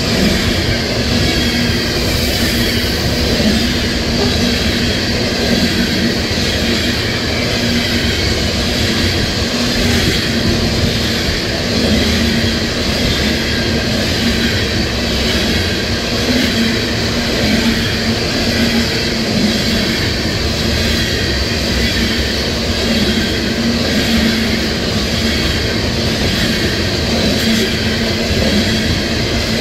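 Freight train of coal gondolas rolling past at speed: a steady, loud rumble and rattle of steel wheels on rail, with a thin metallic wheel squeal running over it.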